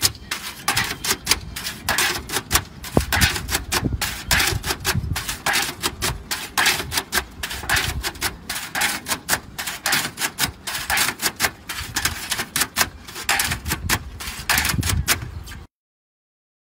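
Aluminum roof shingles clicking and clattering as they are handled and laid: rapid, uneven sharp clicks, several a second, cutting off suddenly near the end.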